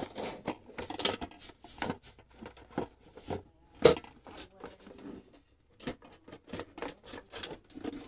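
Plastic parts of an electric hot-water dispenser being handled and fitted during reassembly: irregular small clicks, taps and rattles, with one sharper click about four seconds in.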